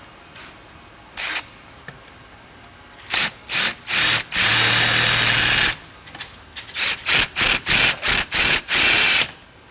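Power drill drilling out a door-latch rivet, run in stop-start trigger pulses: a short burst, a few quick bursts, one steady run of about a second and a half, then a quick string of short pulses near the end.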